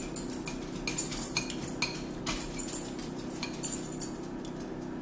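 Metal spoon and fork clinking and scraping against bowls and a plate while eating: irregular sharp clinks, a dozen or so, over a steady low hum.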